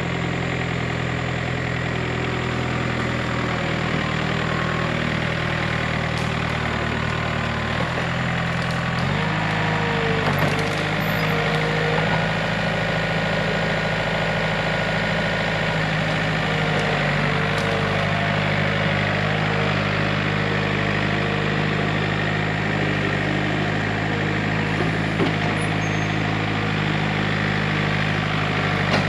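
John Deere 110 backhoe's diesel engine running steadily, its note shifting about nine seconds in.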